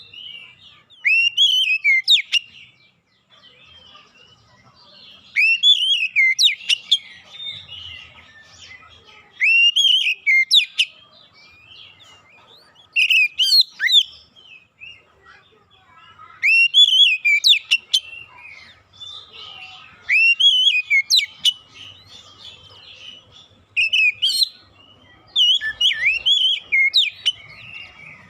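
Oriental magpie-robin (kacer) singing: loud whistled phrases of swooping, sliding notes, each about a second long and repeated every three to four seconds with short pauses between them. This is lure song, played to set off a reluctant kacer singing.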